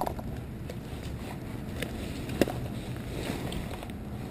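Faint handling noise of gloved hands and pliers working a hook free from a bass in a wooden landing net, with one light click about two and a half seconds in, over a steady low rumble.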